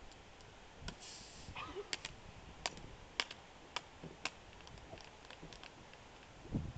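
Irregular sharp clicks and taps of hard objects being handled, about a dozen scattered through, with a short hiss about a second in.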